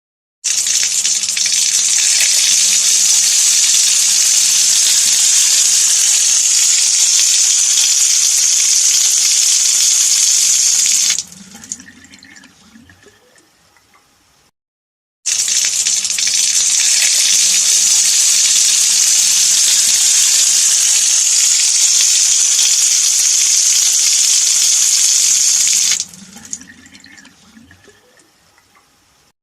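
Tap water running into a stone sink: a steady rush that cuts off sharply after about ten seconds, leaving trickles and drips that fade away. After a brief silence the tap runs again for about ten seconds and stops the same way.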